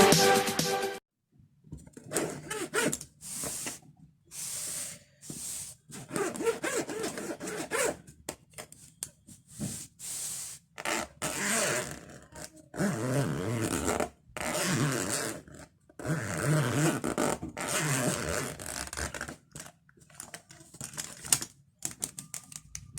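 Fingernails scratching and tapping on a pencil case, in short rasping strokes about a second long with brief pauses between them.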